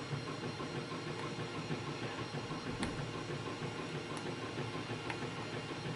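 3D printer running steadily in the background, its stepper motors and fan making a continuous whirring hum. A few faint clicks come on top of it.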